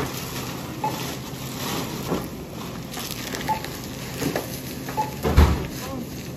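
Clear plastic grocery bags rustling and crinkling as they are handled at a supermarket checkout, with a few short beeps. There is a heavy thump about five and a half seconds in.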